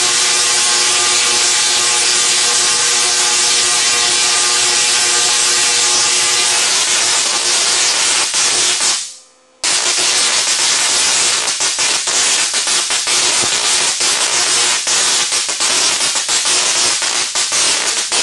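SIDAC-driven Tesla coil arcing into the air: a loud buzzing hiss with a steady hum of tones, turning rougher and crackling with irregular snaps. It cuts out suddenly for about half a second some nine seconds in, then starts again.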